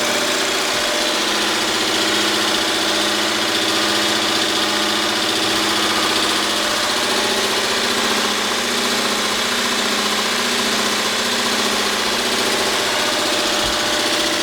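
Oliver No. 173 jig saw running steadily under its 1.5 horsepower three-phase motor, with a constant machine hum and a few steady tones.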